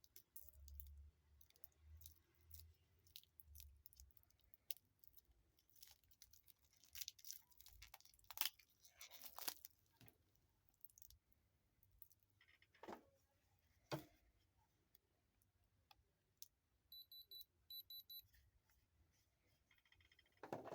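Quiet handling noises of a stainless steel watch and its packaging: scattered clicks, short rustles and light metallic clinks, the loudest about halfway through. A brief faint high-pitched pulsing tone sounds twice near the end.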